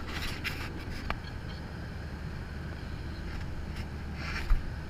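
Steady low hum of an airliner cabin, with a short click about a second in and a dull thump near the end.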